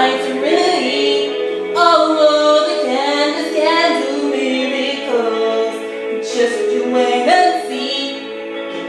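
A cappella female vocal harmonies: several layered voices holding and sliding between long notes, with no bass or drums.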